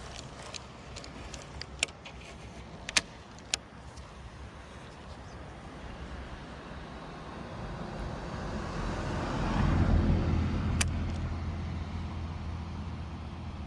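A motor vehicle passes by, growing louder to a peak with a steady low hum and then fading. A few sharp clicks come in the first few seconds.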